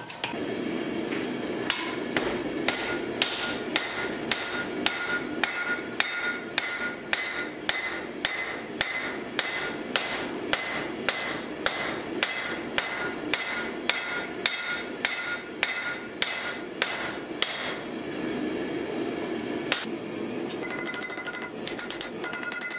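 Hand hammer striking red-hot steel on an anvil, about two blows a second, each blow with a bright ring from the anvil. The blows stop a few seconds before the end.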